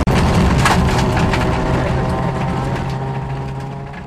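Rally car engine heard from inside the cabin, held at high revs at a steady pitch, with gravel and stones rattling and cracking against the car's underside. The sound fades out gradually near the end.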